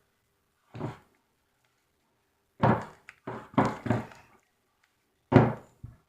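Fluffy slime being slapped and pressed by hand: a series of short, dull thuds, several in quick succession a little after the middle.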